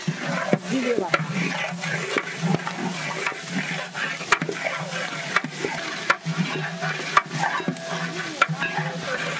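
A long-handled metal spatula stirring spices frying in oil in a large aluminium cooking pot, scraping and knocking against the pot about once a second over a steady sizzle.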